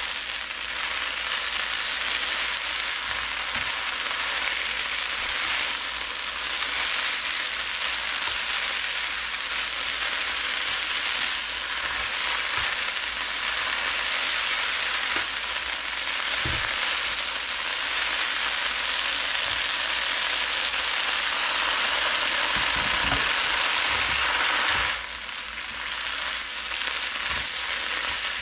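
Water spinach and garlic sizzling steadily in a hot nonstick pan while being stir-fried with wooden chopsticks, with a few light knocks; the sizzle drops for a moment about 25 seconds in, then picks up again.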